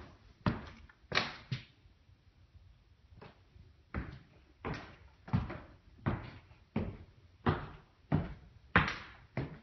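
Footsteps on a hard bare floor, each a sharp knock that dies away quickly. After a pause of about two seconds they settle into an even walking pace of about one and a half steps a second.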